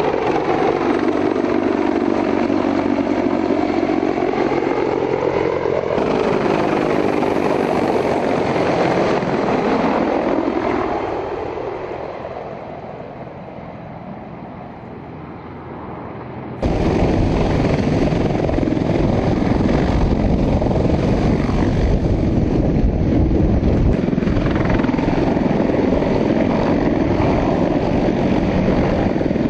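CH-53E Super Stallion heavy-lift helicopter's rotors and engines running, heard across edited shots. First it passes by with a sweeping, whooshing change in pitch, then it fades away from about ten seconds in. About seventeen seconds in the sound cuts abruptly to a loud, close running helicopter.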